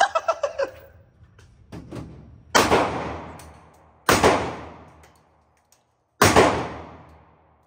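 AR-15-style rifle firing three single shots, spaced about one and a half to two seconds apart, each followed by a fading echo.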